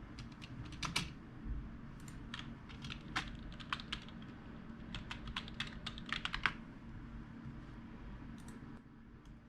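Typing on a computer keyboard: irregular runs of key clicks for about six and a half seconds, then a couple more keystrokes near the end, over a steady low hum.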